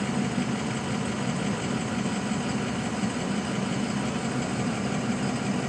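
A vehicle's engine idling steadily, a constant low hum.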